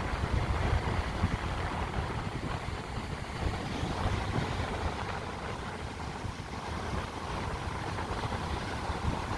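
Wind buffeting the microphone: a gusty low rumble over a steady rushing noise.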